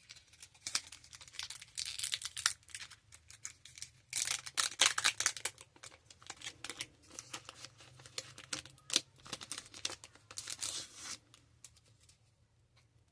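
Foil trading card pack wrapper being torn open and crinkled as the cards are handled: a run of crackling and tearing, loudest about four seconds in, that stops about eleven seconds in.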